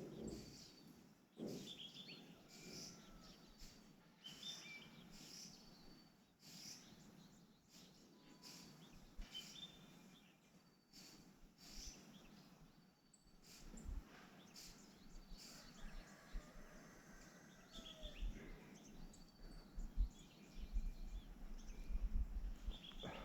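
Faint bird chirps and short calls repeating over a quiet outdoor hush, with a low rumble coming in near the end.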